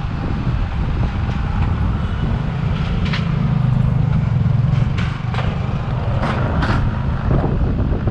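Motorcycle riding in traffic: a steady low engine rumble that swells for a couple of seconds in the middle, with wind on the microphone. A few short sharp noises come between about three and seven seconds in.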